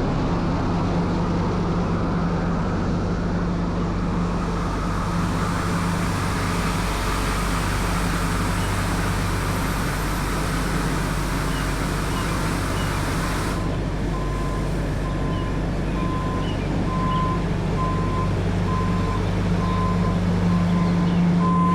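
Tymco 435 regenerative-air street sweeper running, a steady engine hum under a rushing air and sweeping noise. About 14 seconds in, the rushing cuts off and a reversing alarm starts beeping about once a second.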